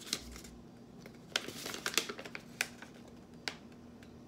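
A folded sheet of paper being unfolded by hand: a few crisp crackles and rustles, most of them clustered around the middle.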